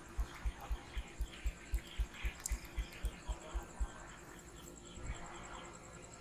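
Dull rhythmic thumps, about four a second, from a barber's hands pounding in a percussive massage. They stop about four seconds in, and one more thump follows a second later.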